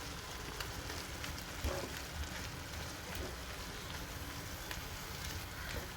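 Button mushrooms sizzling in butter in a pan over a high flame, a steady hiss with faint crackles as their released water cooks off, and a light knock about two seconds in.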